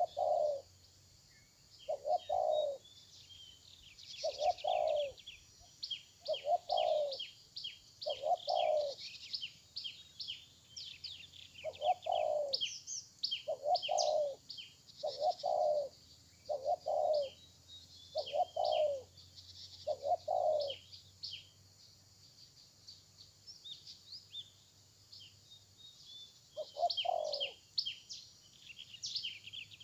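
Spotted dove cooing: about a dozen low coos, roughly one every one and a half to two seconds, with a longer pause after about twenty seconds and one more coo near the end. Small birds chirp high throughout.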